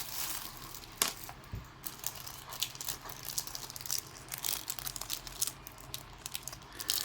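Plastic packaging crinkling and rustling as it is handled and unwrapped, in a quick irregular string of crackles with a sharp click about a second in.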